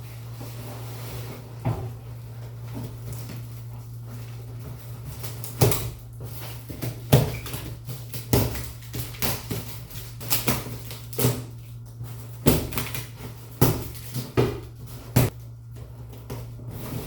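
A steady low hum with a string of sharp, irregular knocks and clatters, about a dozen, starting about five seconds in.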